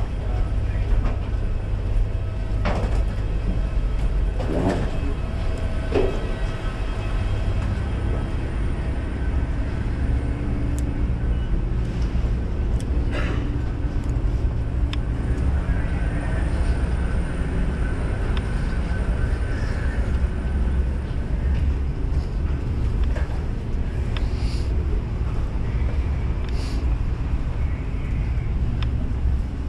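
Steady low rumble of airport walkway ambience, heard while walking, with a few scattered knocks and clicks.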